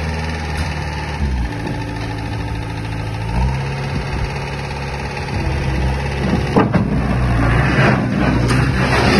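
Skid-steer loader's diesel engine running steadily, its speed shifting down and back up a couple of times, with a few sharp clanks in the last few seconds.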